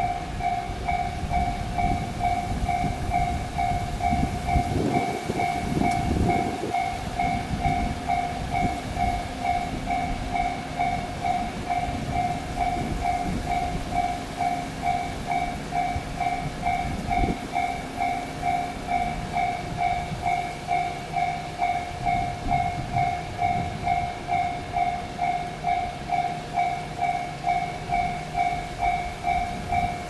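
Japanese level-crossing electronic warning bell ringing a steady two-tone ding about twice a second, signalling that the crossing is closed for an approaching train. A low rumble runs underneath and swells briefly a few seconds in.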